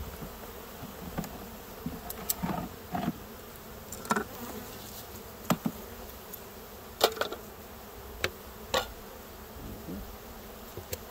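Honeybees buzzing steadily around an open wooden hive box, with a handful of sharp clicks and knocks from frames and hive parts being handled; the loudest knock comes about seven seconds in.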